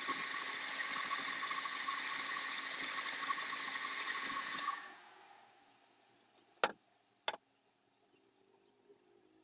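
Wood lathe running with a steady whine, then switched off a little under halfway through and winding down to quiet within about a second. Two short sharp knocks follow, about half a second apart, and another comes at the very end.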